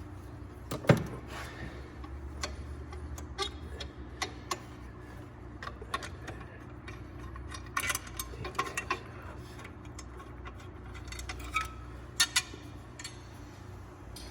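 Scattered metallic clicks and clinks of hand tools and bolts as bolts are backed out at the crank pulley, with a sharp knock about a second in and small clusters of clicks later, over a steady low hum.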